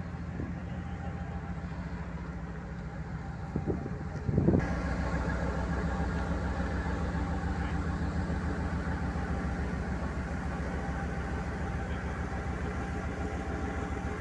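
Diesel engine of a ČSD class T 679.1 locomotive, a two-stroke V12, running with a steady throb as the locomotive moves past. It gets louder about four and a half seconds in.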